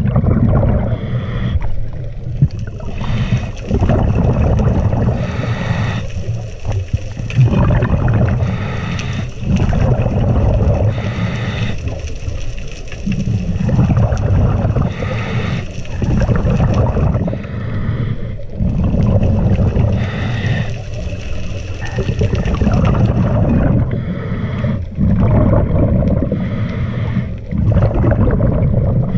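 Scuba diver breathing through a regulator, heard through a camera's underwater housing: a hissing, slightly whistling inhale alternates with the low rumble of exhaled bubbles, cycle after cycle every few seconds.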